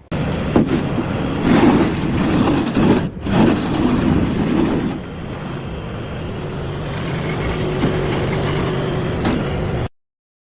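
Heavy construction machine's engine running, with knocks and rattles over the first few seconds and a brief break about three seconds in. It then runs more steadily and cuts off suddenly near the end.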